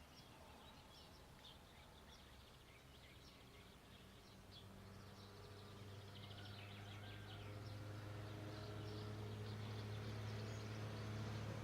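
Many small birds chirping in quick bursts over a low, steady engine hum that grows louder toward the end.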